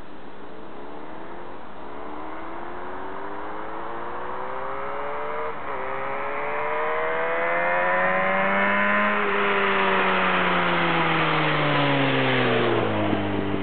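Honda VFR400R NC30's V4 engine pulling hard, its note rising through the revs, dropping briefly at a gear change about five seconds in, then climbing again and getting louder. After about nine seconds the note falls away steadily over several seconds.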